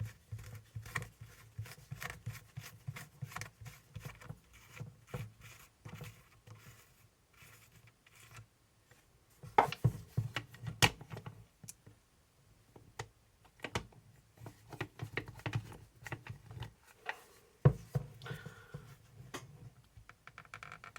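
Hands working on small RC shock parts at a bench: irregular small clicks, taps and rubs of the parts being turned and handled, with a few sharper knocks around ten seconds in and again near eighteen seconds.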